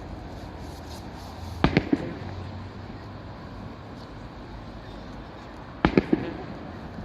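Aerial fireworks shells bursting: a quick cluster of three sharp bangs about one and a half seconds in, and another cluster of three about six seconds in.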